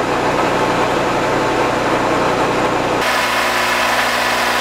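Vertical milling machine running in back gear, its cutter spot-facing a bolt hole in a cast aluminium bracket. About three seconds in, the sound shifts abruptly: it turns brighter and a steady hum of several tones comes in.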